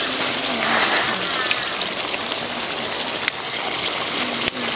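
Tomato-and-onion fish curry boiling in a metal karai: a steady, dense bubbling hiss of the gravy on the boil. Two sharp clicks come in the second half.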